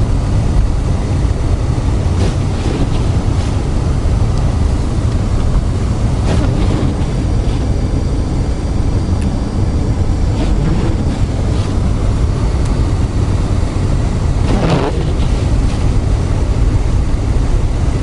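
Car cabin noise while driving on a snow-covered road: a steady low rumble of engine and tyres, with a short swish about every four seconds.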